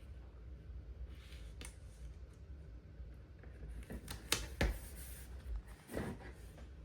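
Quiet handling of a paper sticker sheet and planner page: faint rustling, then a few light taps or clicks between about four and six seconds in, over a steady low room hum.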